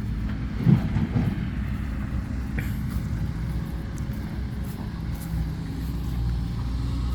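Dump truck's diesel engine running steadily while driving on a packed-earth haul road, with a single knock about 0.7 s in.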